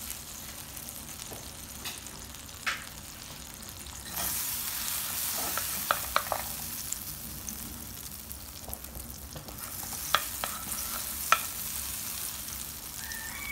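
Butter melting and sizzling in an aluminium frying pan while a wooden spoon stirs it. The sizzle grows louder about four seconds in, with a few sharp clicks of the spoon against the pan.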